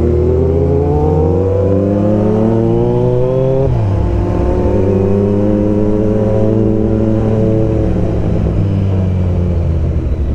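Kawasaki Z900's inline-four engine pulling as the bike accelerates. Its pitch rises for almost four seconds, drops sharply at an upshift, climbs again and then slowly falls away as the throttle eases.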